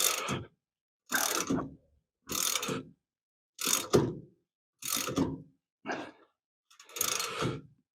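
Ratchet wrench clicking in seven strokes, about one a second, as it turns a nut over a heavy washer to draw a replacement wheel stud through the hub.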